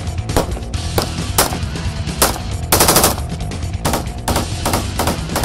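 Gunfire from a CZ assault rifle: a dozen or so sharp shots at uneven spacing, with a short rapid burst about three seconds in.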